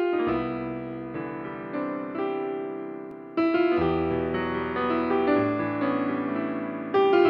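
Background piano music: struck notes and chords that ring and fade, with fresh chords struck about three and a half seconds in and again near the end.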